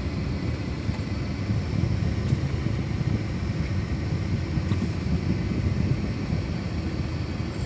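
Steady low rumble of a car's engine and road noise as it creeps forward in traffic.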